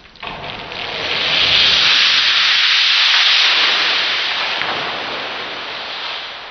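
Loose sand sliding and pouring off a tilted board, a hiss that builds over the first two seconds and then slowly dies away.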